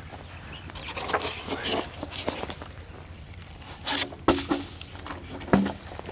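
Footsteps crunching over sand strewn with broken shells, with scuffing and scraping. A few sharper knocks stand out about four and five and a half seconds in.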